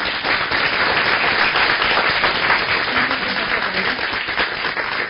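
Audience applauding: many hands clapping in a dense, steady clatter.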